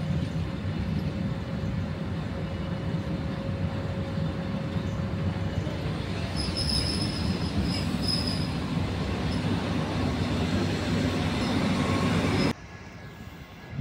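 Electric commuter train rolling through a station with a steady low rumble; its wheels squeal briefly about halfway through, and the sound cuts off suddenly near the end.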